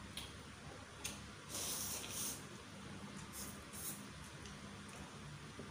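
Chicken noodles (mie ayam) being slurped from a bowl: a short slurp about a second in, a longer one lasting most of a second soon after, then two short slurps a little later.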